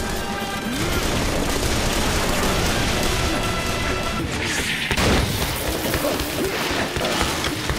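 Animated action-scene sound effects: a dense, continuous din of gunfire, crashes and booms, mixed with music.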